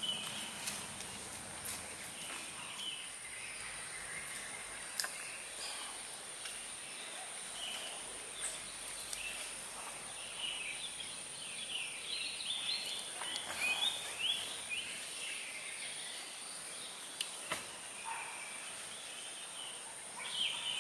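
Tropical forest ambience: a steady high insect drone with birds chirping repeatedly, busiest around the middle, and a few scattered soft clicks.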